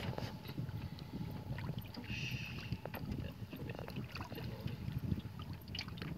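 Water lapping against a small boat's hull, with a low wind rumble on the microphone and scattered light clicks. A brief hiss comes about two seconds in.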